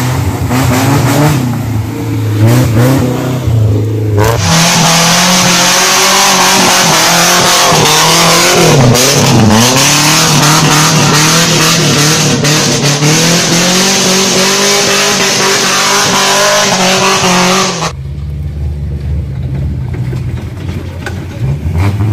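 Off-road 4x4 engine revving hard under load, its pitch dropping sharply and climbing back about nine seconds in. The sound changes abruptly twice, to a louder, harsher stretch after about four seconds and to a lower, quieter engine hum near the end.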